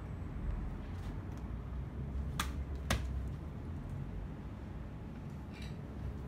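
Two sharp knife strikes into a hanging cut of neck meat, about half a second apart, the second louder, over a low steady rumble.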